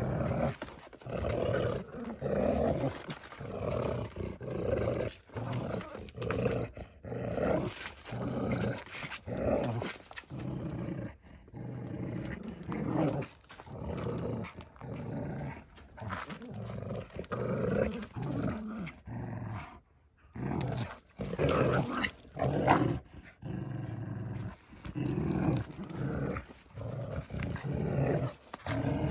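Dogs growling in play, a long run of rough growls in repeated bursts about a second apart with short breaks between.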